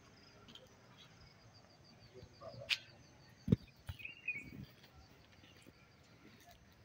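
Quiet outdoor ambience with faint, evenly repeated high chirps through the first half. About halfway through comes a sharp click, then a dull knock, the loudest sound, followed by a short chirp and a few soft knocks.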